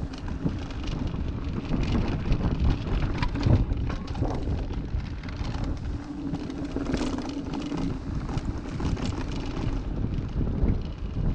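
Mountain bike riding fast down a dirt trail: wind rushing over the action camera's microphone and the knobby tyres rolling on dirt and leaves, with frequent knocks and rattles from the bike over bumps.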